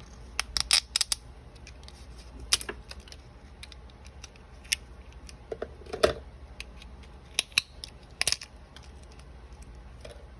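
Scissors cutting open a small plastic toy package, with sharp snips and clicks in short clusters: several quick ones near the start, then single snips and pairs every second or two.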